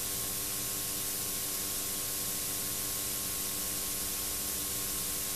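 Steady hiss with a faint hum underneath: the background noise of a VHS tape transfer. No other sound stands out.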